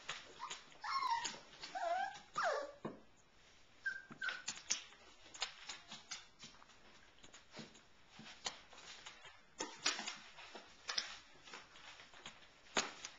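Cockapoo puppies whining with short high gliding calls in the first few seconds and two brief yips about four seconds in, followed by scattered sharp clicks and taps as they scuffle over toys.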